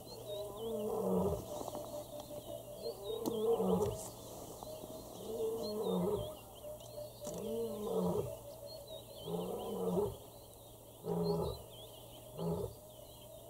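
A large animal's deep roaring calls, repeated about every two seconds, the last few shorter. Small birds chirp faintly and high-pitched throughout.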